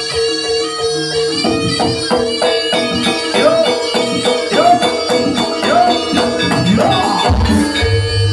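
Javanese jaranan music: a nasal reed-wind melody, typical of the slompret, over a steady held tone, with drums and jingling percussion keeping a regular beat. A deep low stroke sounds near the end.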